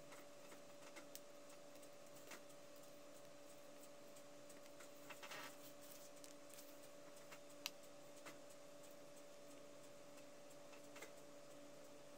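Near silence: a faint steady hum, with a few soft clicks and rustles of card paper being handled, and one sharper tick a little past halfway.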